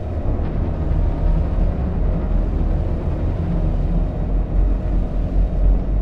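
Horror sound-effect drone: a loud, steady, distorted low rumble, deep in the bass.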